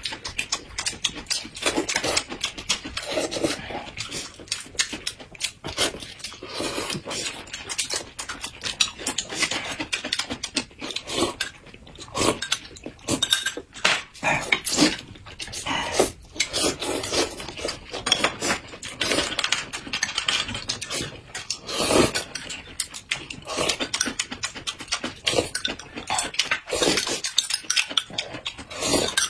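Close-miked eating sounds of two people: noodles slurped and braised meat chewed with wet smacking. Near the end there is light clinking of spoons against glass cups.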